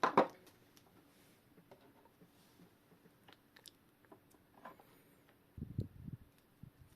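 Small metal clock-movement parts being handled during reassembly: scattered faint clicks and taps, a sharper scrape right at the start and a duller rustling knock near the end.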